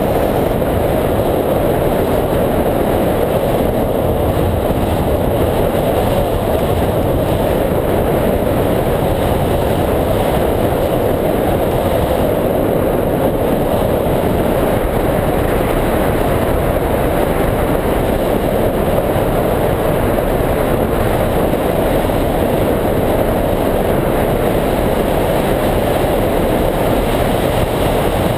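Steady rush of airflow over a hang glider's wing-mounted camera microphone in flight: a constant loud wind noise that does not change.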